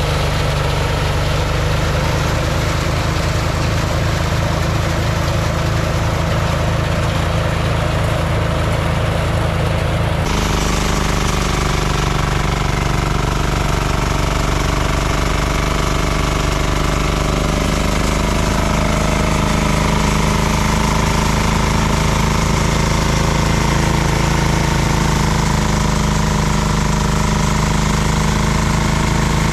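A small engine running steadily and loudly, with a steady chugging beat; its tone shifts abruptly about ten seconds in and then runs on evenly.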